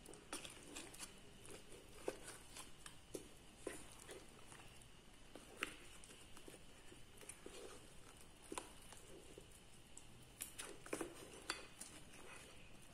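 Wooden spoon stirring a thick meat-and-potato curry in a pot, heard faintly: scattered soft squelches and light taps of the spoon against the pan.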